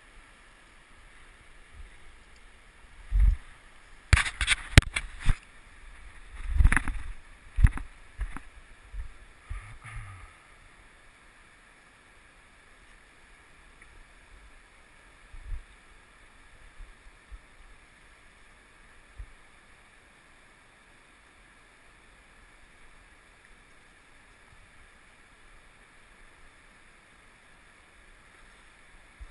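Knocks and low thumps from handling of a body-worn camera, a cluster of them between about three and ten seconds in and a few weaker ones later, over a faint steady river hiss.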